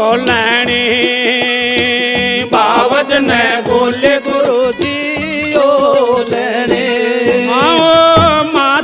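Haryanvi devotional bhajan music: a wavering, ornamented melody line over a steady drum beat, with no words sung.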